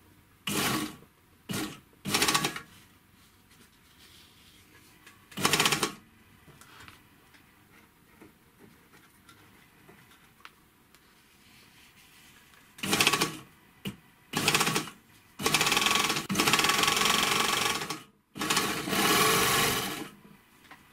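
Gemsy 1D three-thread overlock machine running in bursts while stitching denim: a few short runs, a pause, then two short runs and two longer runs of a couple of seconds each.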